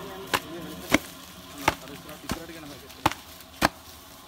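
A steady series of sharp chopping blows, six in about four seconds at an even pace of roughly one every two-thirds of a second.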